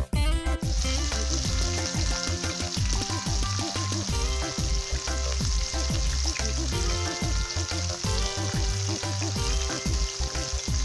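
Flour-dredged chicken necks deep-frying in a pan of hot oil: a steady bubbling sizzle that comes in about half a second in, with background music underneath.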